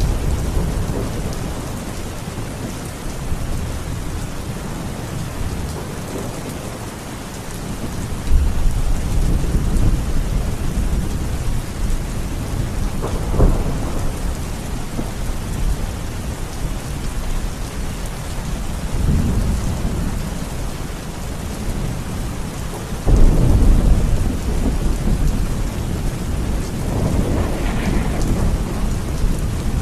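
Steady rain falling in a thunderstorm, with deep rolling thunder rumbles swelling up several times; the loudest comes about three-quarters of the way through, and a sharper crack comes near the middle.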